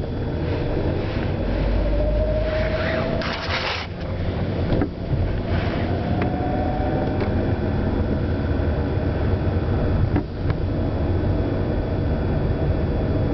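Peugeot 307 running, a steady low rumble with a thin whine that slowly rises in pitch twice. A short burst of hiss comes about three seconds in.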